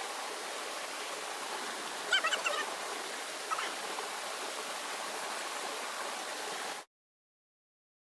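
Small rocky waterfall cascading into a pool, a steady rushing of water, with a brief sharper sound about two seconds in. The sound cuts off abruptly near the end.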